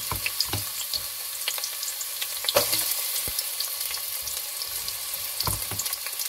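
Chopped garlic and onion sizzling in hot olive oil in a stainless steel pot: a steady frying hiss with scattered crackles and pops, one louder pop a little under halfway through.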